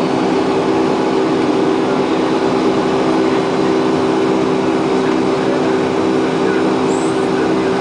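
Boeing 757 turbofan engine heard from inside the cabin during the climb after takeoff: a steady noise with a low drone of several held tones.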